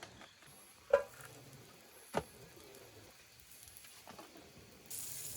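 Two sharp knocks about a second apart, then near the end a steady sizzle starts suddenly: food beginning to fry in a hot pan.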